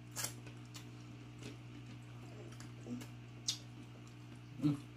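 Eating sounds close to the microphone: a handful of separate wet clicks and mouth smacks, over a steady low hum.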